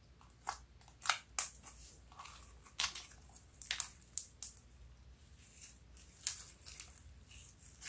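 Glossy pink slime with heart sprinkles being squeezed and stretched by hand, giving a string of irregular sharp wet clicks and pops.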